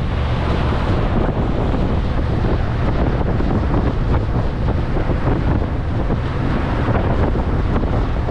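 Wind buffeting the microphone on a moving passenger ferry, over a steady low rumble from the boat and the rush of water.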